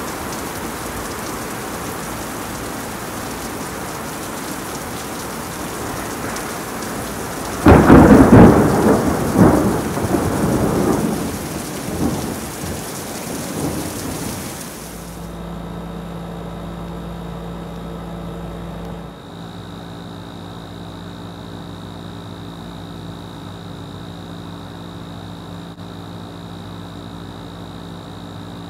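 Steady heavy rain, then about eight seconds in a loud, close crack of thunder that rumbles away over several seconds. About halfway through, the rain sound cuts off suddenly and a quieter steady hum takes over, with a faint high whine joining a few seconds later.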